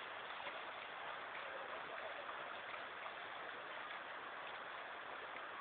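Steady rushing wash of sea surf over shallow water at the shore.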